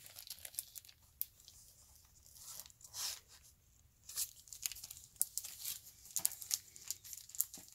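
Clear plastic comic-book bags crinkling and rustling as they are handled, with many short, sharp crackles and a longer rustle about three seconds in.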